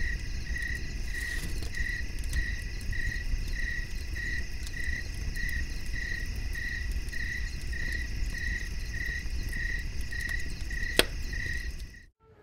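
Crickets chirping in a steady, even rhythm, about three chirps every two seconds, over a constant high trill and a low rumble. A single sharp click about eleven seconds in, and the sound cuts off suddenly near the end.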